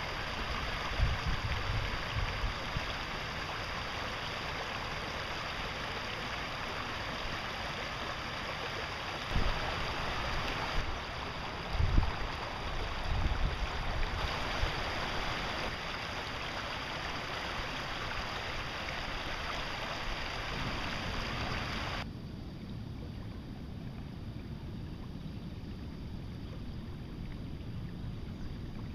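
River water running over and around rocks: a steady rushing hiss with a few low thumps in the first half. It drops to a quieter rush about two-thirds of the way through.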